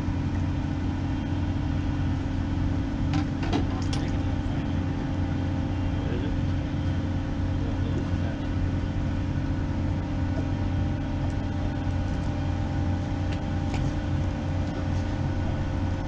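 Steady low drone of heavy machinery holding several constant tones, with a few faint clicks about three and a half seconds in.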